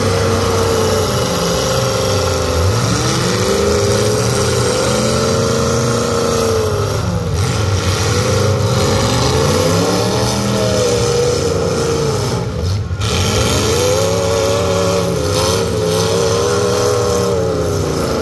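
Demolition derby cars' engines revving hard, the pitch climbing and falling over and over as the cars accelerate and back off, over a loud, constant engine din.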